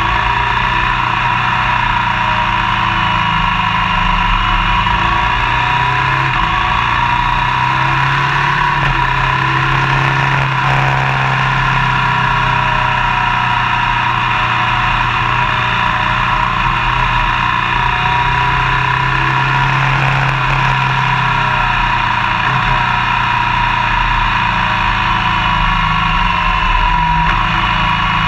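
Motorcycle engine running steadily while riding, its pitch shifting slowly with the throttle, over a constant rush of wind and road noise.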